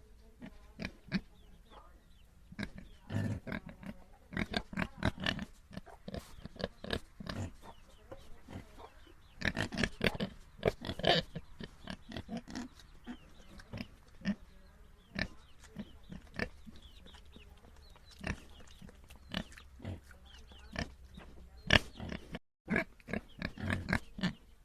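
Domestic pigs grunting in many short, irregular calls, busiest and loudest about ten seconds in, with a momentary break in the sound near the end.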